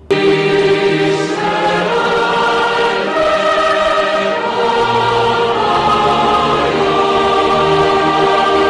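Background music: a choir singing long held chords, starting suddenly.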